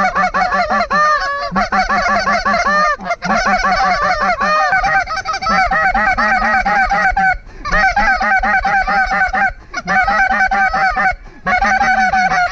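Hunters blowing duck calls hard at a flock overhead: loud, rapid, continuous quacking and chatter, broken by a few short breath pauses, to work the birds down toward the decoys.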